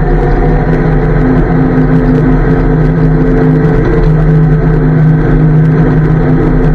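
Daimler Ferret armoured car's Rolls-Royce B60 straight-six petrol engine running at a steady pace while driving, a loud, even drone.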